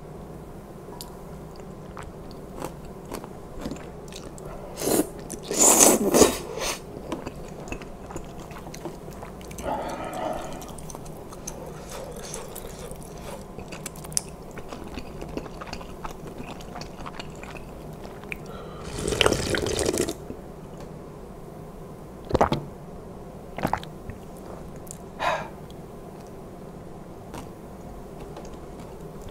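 Close-miked eating sounds of spicy kalguksu noodle soup: chewing mouthfuls, with two louder noisy bursts about a second long and a few short sharp sounds later on.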